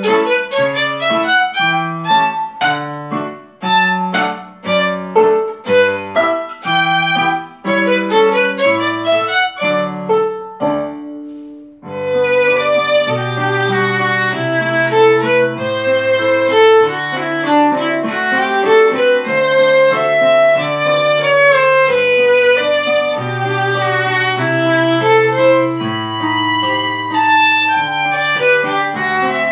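Violin played with a bow: short, detached notes for about the first ten seconds, a brief pause, then a smoother passage of longer held notes. A lower-pitched accompaniment sounds underneath.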